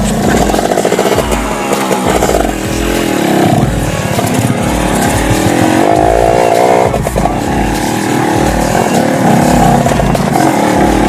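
Dirt bike engine revving up and down over and over, its pitch rising and falling.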